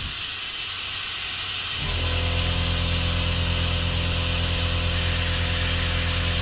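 Air-powered vacuum brake bleeder hissing steadily with its trigger held, drawing air and old fluid out of the brake line through a hose on the caliper's bleeder. About two seconds in, a steady low hum joins the hiss.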